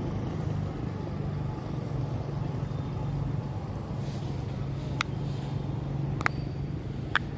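A steady low hum, like a distant motor, with three short sharp clicks in the last few seconds.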